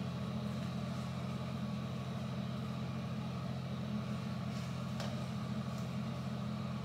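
Steady low hum with no change in pitch or level, with a faint click about five seconds in.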